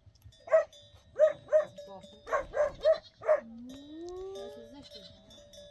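A dog barking, seven short barks in quick succession over about three seconds.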